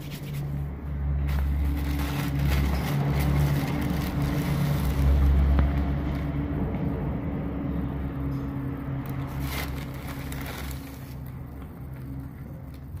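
Low steady drone that breaks off briefly now and then, under scraping and rattling of grains and small clicks as a toy tractor and its metal trailer are handled.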